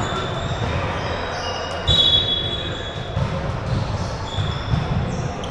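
A basketball dribbled and bouncing on a gym floor, with a harder thud about two seconds in and short high squeaks over background crowd chatter.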